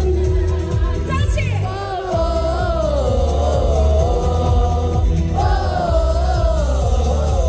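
Live pop band performance: a female lead vocalist sings two long, wavering phrases over a steady, heavy bass line from the band.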